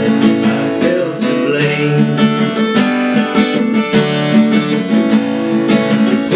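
Acoustic guitar with a capo, strummed in a steady rhythm with the chords ringing: an instrumental passage between the sung lines of a folk song.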